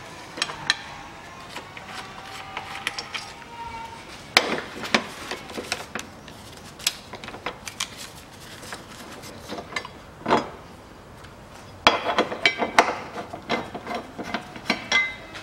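Metal hand tools clinking and knocking against steel suspension and subframe parts as fasteners are worked under the car: scattered sharp clicks, with a quick run of clicks about twelve seconds in.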